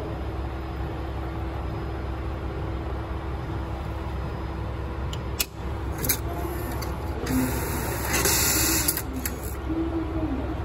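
Shinko Electric push-button ticket vending machine taking in a 1000-yen note: a sharp click about five seconds in, then its note mechanism whirring in short spells, loudest for about two seconds near the end, over a steady low hum.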